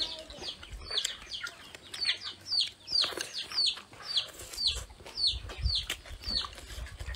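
Chicks peeping: a continuous string of short, high peeps, each sliding downward in pitch, about three a second.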